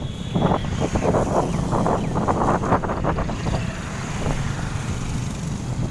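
Road traffic passing on the bridge deck, a steady rumble of engines and tyres, with wind buffeting the microphone.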